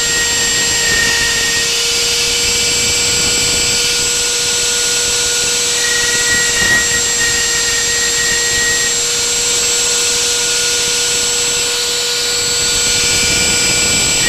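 Homemade CNC router's spindle running at a steady high-speed whine as its bit carves a lettering groove into a wooden board. A higher tone comes and goes over the whine.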